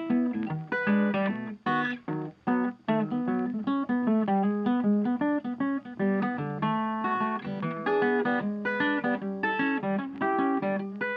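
Background music: plucked acoustic guitar playing a quick run of notes.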